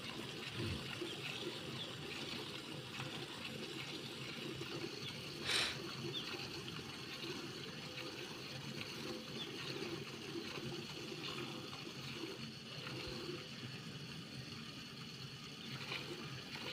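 Milk squirting in continuous streams into a steel bucket as a cow is milked by hand. A brief, louder rush cuts through about five and a half seconds in.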